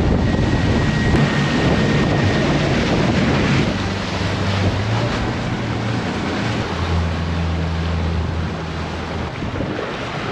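Small water-taxi boat under way: a low engine hum under heavy wind buffeting on the microphone and rushing water. The engine's hum comes up clearest about four seconds in and shifts in pitch a few seconds later.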